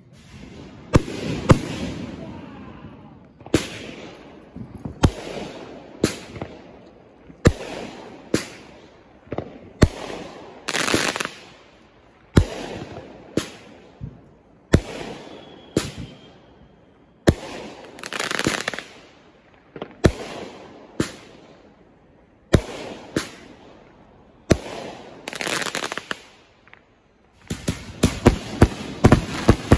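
Aerial fireworks going off: a string of sharp bangs, one every second or two, each followed by a crackling hiss, then a rapid volley of bangs near the end.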